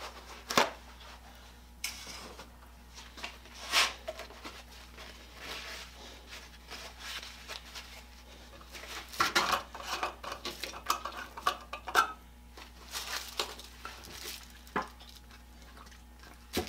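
A paper towel rustling as it is folded and handled in rubber-gloved hands, with scattered light clicks and knocks on the workbench, busiest about two-thirds of the way through.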